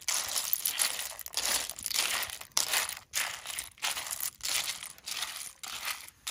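Cooked clam shells clattering and scraping against a metal wok as they are stirred with a bamboo stick, in repeated crunchy strokes about twice a second.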